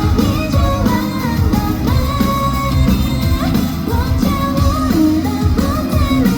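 Live pop-rock band playing a song through the PA: lead vocals over drums, bass and electric guitar.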